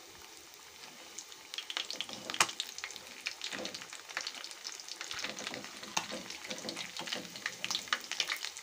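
Fish pieces deep-frying in hot oil in an aluminium kadai: a steady sizzle with scattered crackles and pops, getting busier about a second in. A few sharper clicks come as a metal slotted spoon turns the pieces, which have browned on one side.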